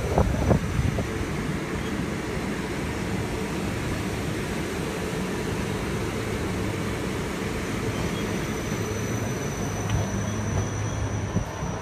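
Dresden CarGoTram electric freight tram rolling past at close range: steady rail and wheel rumble with a thin high whine and a low hum. A few knocks sound near the start, and a whine rises in pitch near the end.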